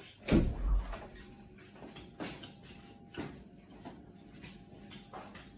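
A deep thump just after the start, then four or so light knocks and clicks roughly a second apart, from someone moving about and handling things in a small room.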